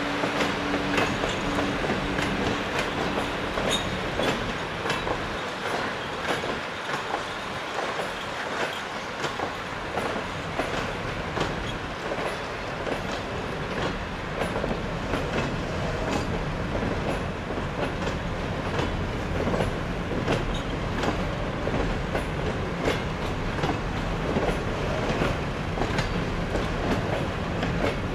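Freight train of open-top wagons rolling past: a continuous rumble of steel wheels on the rails, with many irregular clicks as the wheels cross rail joints.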